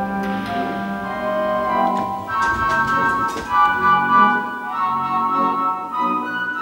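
Schyven pipe organ playing a passage of held chords, the notes shifting every second or so with a line moving over them.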